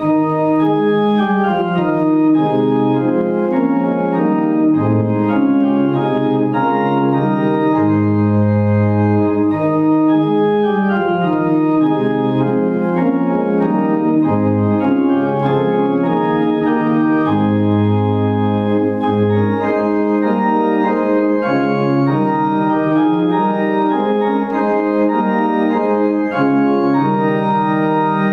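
Organ playing slow, sustained chords over long-held bass notes.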